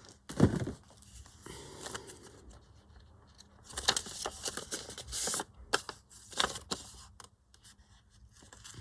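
Paper and card being handled on a craft desk: a heavy thump about half a second in, then bursts of rustling and scraping with a few sharp clicks.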